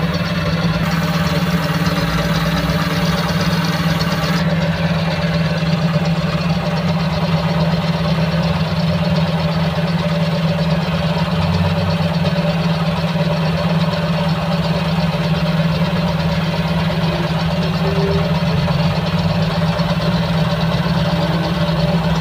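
An engine idling steadily with a strong low hum that holds even throughout. A high hiss over it cuts off suddenly about four seconds in.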